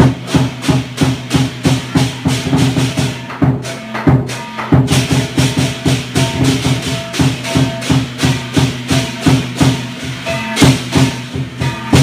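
Lion dance percussion playing live: a drum beaten with clashing cymbals at about four to five strokes a second over a ringing gong. The cymbals break off briefly about three and a half seconds in, then pick up again.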